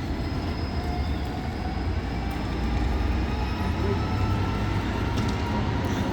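A train's steady low rumble, growing a little louder, with faint steady whining tones above it.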